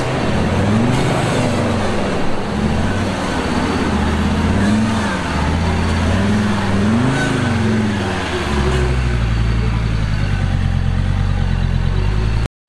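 Ford Troller T4's engine revving up and down under load as the 4x4 climbs a steep, rutted dirt slope. Its pitch rises and falls several times, then holds a steadier drone for the last few seconds before cutting off suddenly.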